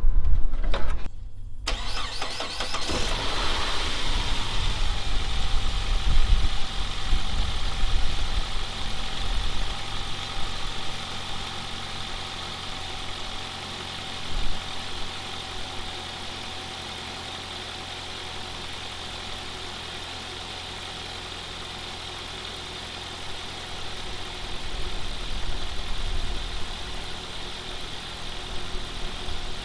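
Saab 9-5 Aero's 2.3-litre turbocharged four-cylinder engine starting about two seconds in on its freshly fitted spark plugs and ignition cassette, idling high at first and then settling to a steadier, quieter idle.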